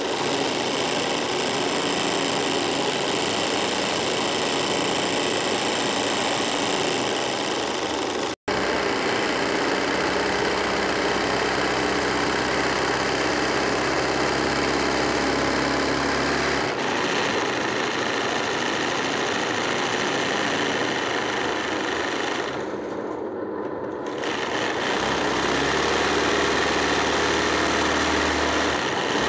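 Embroidery sewing machine running steadily, stitching thread into fabric held in a hoop. The sound cuts out for an instant about eight seconds in and softens briefly about three-quarters of the way through.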